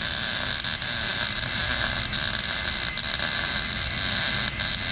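MIG welder arc running steadily as a bead is laid: a harsh, continuous frying hiss that starts right as the trigger is pulled.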